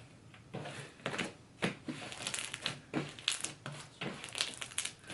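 A large batch of mixed slime being squished and stretched by hand, giving irregular sticky clicks and crackles.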